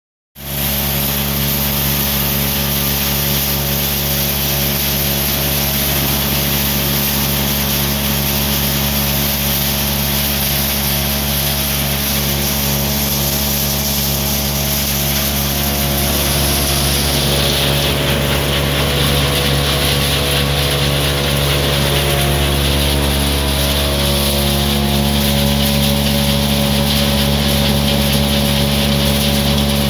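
Almond shelling machine running steadily: an electric motor's steady hum with a continuous rushing noise from the shelling and sieving mechanism above it. The higher rushing shifts lower about halfway through.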